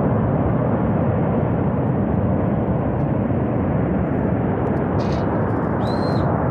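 Glacier-collapse flash flood of water, mud and rock tearing down a mountain gorge: a loud, steady, deep rumble that never lets up.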